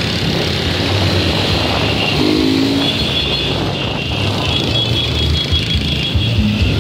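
Small single-cylinder motorcycle engines, the rider's own Honda CG 160 Fan among them, running steadily as a group of bikes rides along a street, under a continuous rushing noise.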